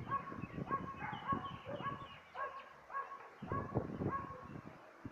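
A dog barking over and over, faint, roughly one bark every half second.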